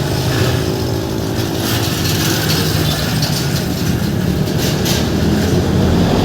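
Steady vehicle and road-traffic noise, a continuous rumble and hiss.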